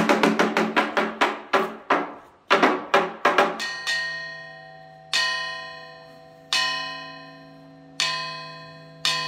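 Rapid wooden knocking on a hollow carved wooden fish (mokeo), beaten inside its belly; the knocks slow and thin out and stop about three and a half seconds in. Then a thin cloud-shaped metal plate gong (unpan) is struck a little over a second apart. Each stroke rings with several clear, bright tones that slowly die away.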